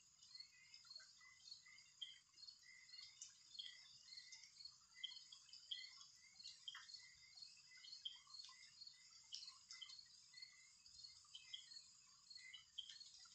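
Faint background chirping: many short, irregular high chirps with no other sound.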